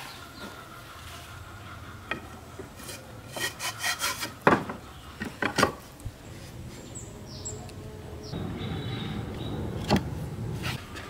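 Wooden parts of a large embroidery frame knocking, clicking and rubbing as its rollers and side bars are fitted together: a quick run of sharp wooden knocks in the middle, and one more knock near the end.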